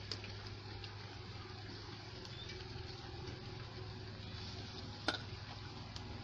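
Steel plate clinking as a ragi mixture is spooned onto the cloth-lined puttu steamer, with a sharp click just after the start and a louder one about five seconds in, over a steady low hum and hiss.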